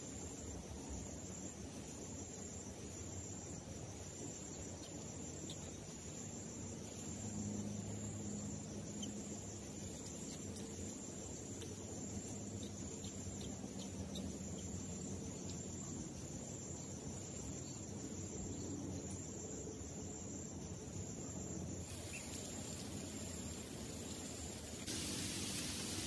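Steady chirring of insects over a low outdoor hiss, with no clear bird calls. About a second before the end a louder, even hiss of falling rain takes over.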